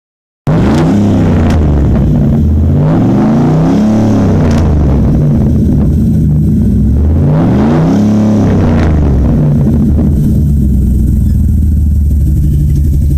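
Straight-piped exhaust of a 2001 Dodge Ram 1500's stock 318 (5.2 L) V8, revved up and let down several times while parked, then settling to a loud, steady idle about ten seconds in.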